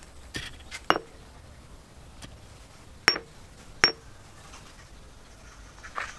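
A cut-off piece of steel car axle clinking against a steel anvil block as it is set down and handled on it: three sharp metal-on-metal clinks with a brief ring, about a second in and twice more around three to four seconds in.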